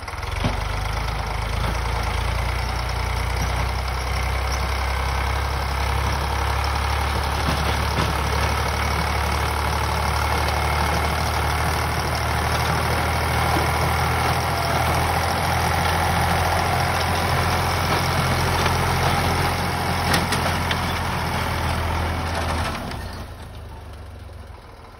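Eicher 548 tractor's diesel engine running steadily under load, driving a rotavator that churns through the soil; the sound fades away near the end.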